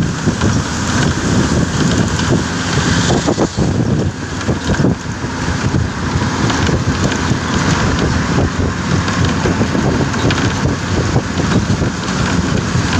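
Steady mix of wind rushing in at the open side window of a moving bus and the bus's diesel engine running at cruising speed.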